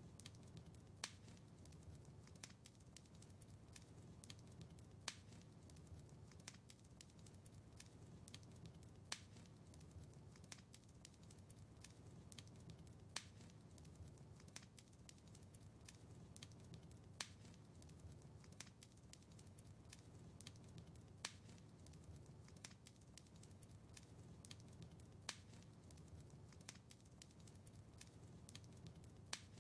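Fireplace fire crackling: frequent sharp pops and ticks over a low, steady rumble, with a louder pop about every four seconds.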